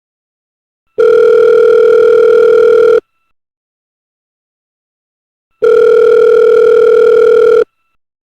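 Telephone ringback tone as heard by the caller: two steady rings of about two seconds each, one starting about a second in and the second a little over two and a half seconds after the first ends.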